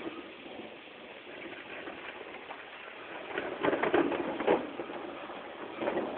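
Thunder during a lightning storm: a steady background hiss, then a crack of thunder about three and a half seconds in that crackles for about a second with two sharp peaks, and a shorter burst near the end.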